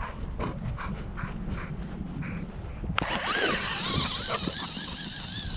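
A dog panting rhythmically, about four or five breaths a second. About three seconds in there is a click, and an RC buggy's electric motor starts whining, its pitch wavering up and down as the throttle changes.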